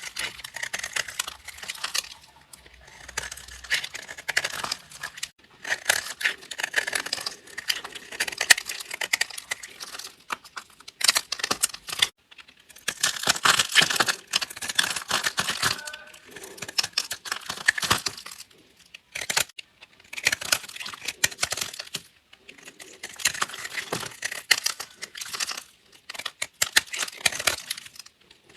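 A blade cutting through a bar of dry soap, crunching and crackling in repeated strokes of a second or two, with short pauses between them.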